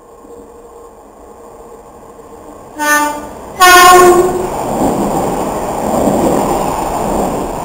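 Electric multiple unit train sounding its horn in two short blasts of different pitch, the second louder and longer, then running along the platform with a loud rush of wheel and rail noise.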